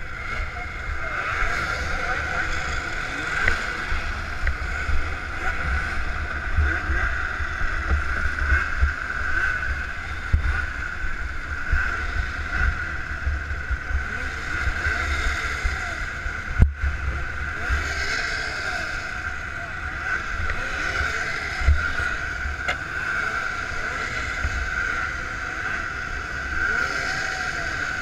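Snowmobile engines droning steadily around a helmet-mounted camera, with wind rumbling on its microphone and faint voices. A single sharp click about two-thirds of the way through.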